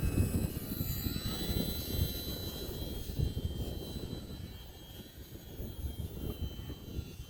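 Small RC airplane's electric motor and propeller whining overhead, the whine shifting in pitch about a second in. Gusts of wind buffet the microphone throughout.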